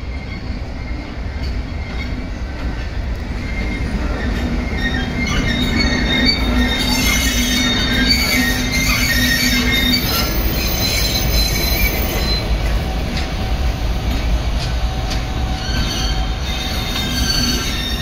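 An EF510 electric locomotive towing a DE10 diesel locomotive passes at low speed. Its wheels rumble on the rails with a high, wavering flange squeal, and the sound grows louder as the pair draws level, about halfway through.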